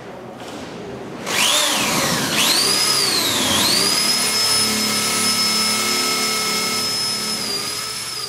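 Corded electric drill starting up about a second in, its whine rising and dipping as it bites into the wall, then running at a steady high pitch that drops slightly near the end.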